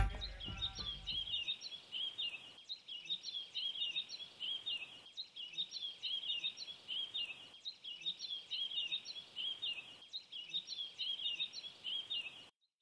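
Small birds chirping in quick high twitters, a short ambience loop that repeats about every two and a half seconds and cuts off suddenly near the end.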